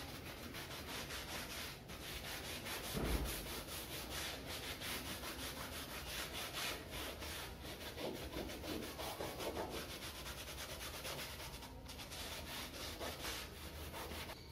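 Scouring pad scrubbing a cricket pad's surface in rapid back-and-forth strokes, with a soft bump about three seconds in.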